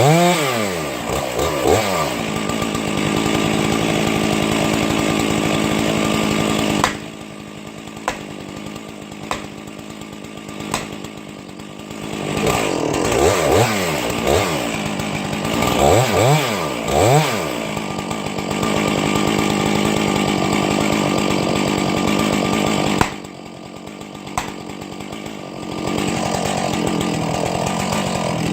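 Chainsaw running at full throttle, cutting through a Douglas fir, with its pitch sweeping up and down several times as it revs. It drops back to a quieter idle twice, about a quarter of the way in and again near the end, with a few sharp clicks during the first idle.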